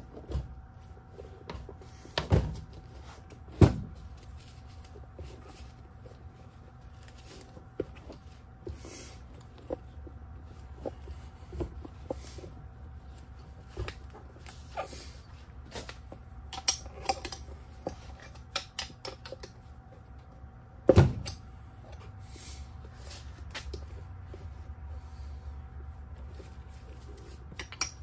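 A knobby scooter tire being worked by hand and with tire spoons onto a hub motor's rim: scattered clicks, scrapes and knocks of rubber and metal. There are two loud thumps a few seconds in and another about three-quarters of the way through.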